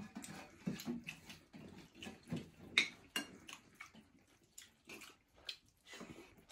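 People eating rice and curry with their hands from metal plates: wet mixing and chewing sounds, broken by irregular small clicks of hands and spoon against the plates. One sharper click comes near the middle.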